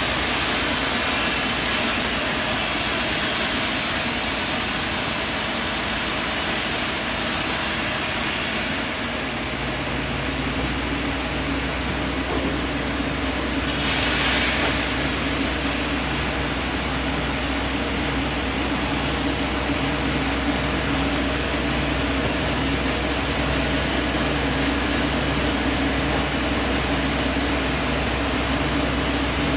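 Sawmill machinery running steadily. A strong high hiss drops away about a third of the way in and there is a brief louder rush near the middle. After that it runs on with a low, regular pulse about once a second.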